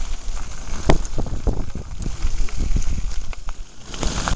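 A mountain bike rolling over a loose gravel track, with tyres crunching on stones and the bike rattling over the bumps. There is a sharp knock about a second in, and wind rumbles on the microphone.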